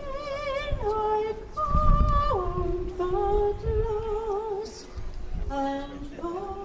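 A woman singing a slow, wordless-sounding solo melody, long held notes with wide vibrato stepping down to a lower pitch about halfway through, over a low rumble.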